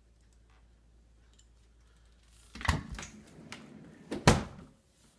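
Knocks and rattling from something being opened and shut: a clatter about two and a half seconds in, a few smaller knocks, then one sharp, loud knock a little after four seconds.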